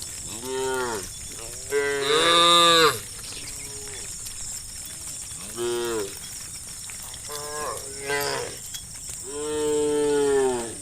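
Cows mooing: five separate moos, some short and some long, the loudest about two seconds in and another long one near the end, over a steady faint high hiss.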